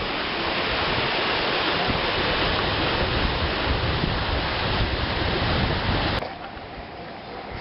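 Waterfall: a loud, steady rush of falling water, with some wind buffeting the microphone. About six seconds in it cuts off abruptly, leaving a much quieter, thinner rush.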